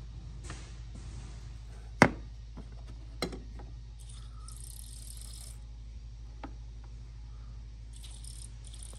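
Two sharp clicks, the first loud and about two seconds in, then two hisses of aerosol lubricant sprayed into a throttle cable luber, the first about a second and a half long and the second shorter near the end, over a steady low hum.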